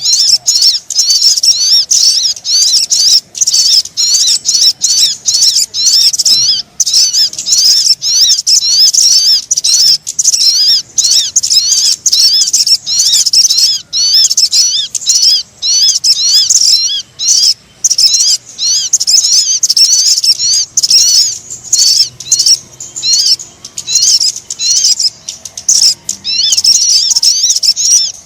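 Sogon bird lure call: a fast, unbroken stream of high, thin chirping notes, several a second, with only brief pauses.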